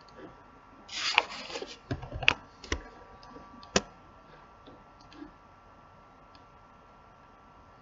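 Computer mouse and keyboard being worked: a brief rustle about a second in, then a few sharp clicks over the next couple of seconds, over a faint steady electrical hum.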